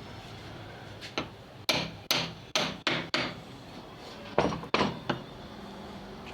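About ten sharp hammer blows on metal, a quick run of about seven starting about a second in, then three more a little later, each with a short ring.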